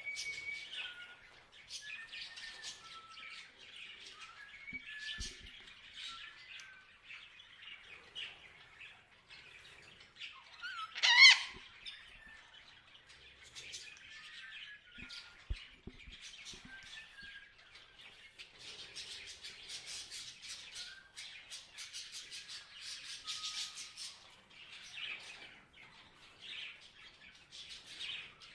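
Parrots chirping and chattering in a steady stream of short calls and whistles, with dense rapid chatter for several seconds past the middle. One loud, harsh squawk stands out about eleven seconds in.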